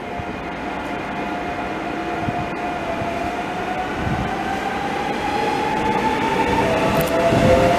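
CFL Series 2200 double-deck electric multiple unit running in to the platform, its rumble growing steadily louder as it approaches. Whining tones from the train drift slowly up in pitch and then drop near the end.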